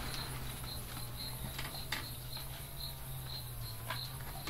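An insect, cricket-like, chirping steadily: a short high pulse repeated evenly about three times a second, over a low steady hum, with a couple of sharp clicks about two and four seconds in.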